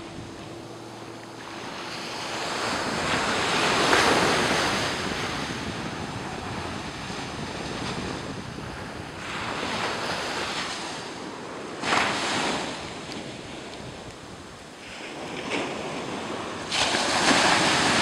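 Surf breaking and washing up a sandy beach, swelling and fading in several waves a few seconds apart, with wind on the microphone.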